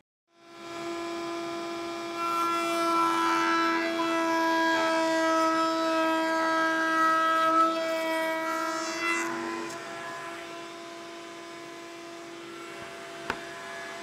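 Table-mounted router spinning a roundover bit, running as a steady high whine while a wooden workpiece is fed along the bit to round over its edges. It is louder from about two to nine seconds in, then settles lower, with one short click near the end.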